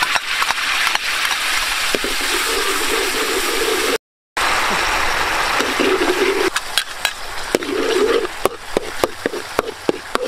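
Red sauce sizzling in hot oil in a metal wok, stirred with a metal ladle that scrapes and taps against the pan, the taps coming thick and fast in the second half. The sound cuts out completely for a moment about four seconds in.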